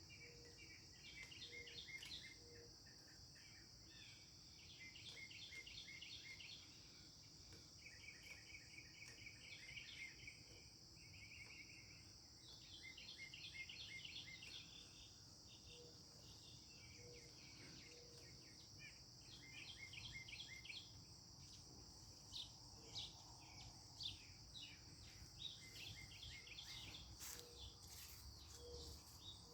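Northern mockingbird singing: bouts of rapidly repeated notes, switching to a different phrase every few seconds, over a steady high buzz of insects.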